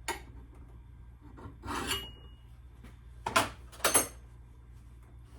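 Metal hand file scraping along the edge of an old axe head in four separate strokes, sharpening the blade.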